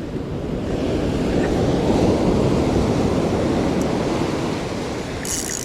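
Surf: a wave surges in, building over a couple of seconds and then easing off. Near the end the fast, whirring clicks of a spinning reel being cranked start up.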